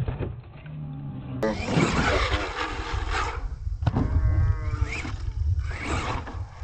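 Radio-controlled monster truck running over a dirt track with a steady low rumble, and a sharp knock about four seconds in as it hits a wooden ramp.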